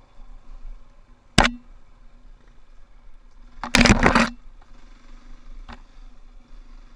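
Muffled, low hum of a KTM dirt bike's engine heard through a mounted camera, with a sharp knock about a second and a half in. Around four seconds in, branches and leaves scrape loudly across the camera for about half a second.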